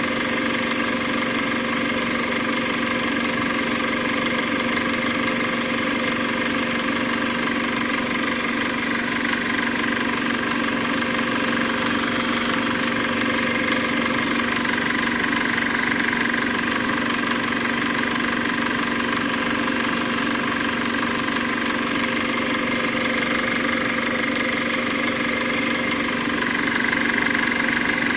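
A steady, unchanging mechanical running noise with a constant hum, like a small motor.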